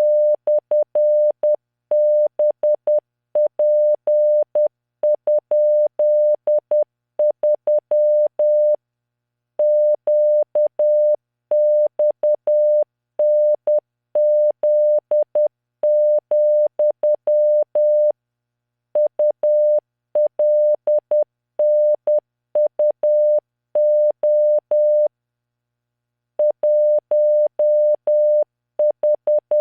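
Computer-generated Morse code: a pure mid-pitched tone keyed on and off in dots and dashes at 10 words per minute. Runs of characters are separated by short silent gaps, as in random five-character practice groups.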